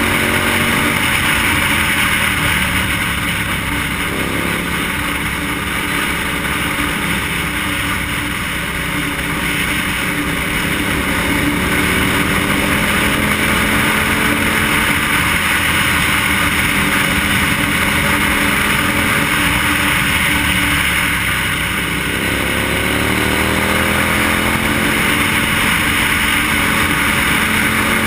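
On-board sound of a KTM SMT motorcycle's engine under way with heavy wind noise. The engine pitch sags as the throttle eases about eight seconds in and again around twenty-two seconds, then rises again as it pulls back up.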